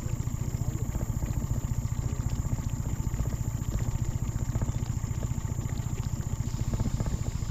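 Jon boat's outboard motor running steadily, a fast low-pitched pulsing as it pushes the boat along.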